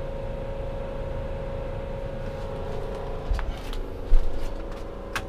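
Atwood Hydroflame 8520 RV furnace running on a test fire after a new igniter was fitted: steady blower hum with a constant tone. A few light clicks and a knock come about three to four seconds in.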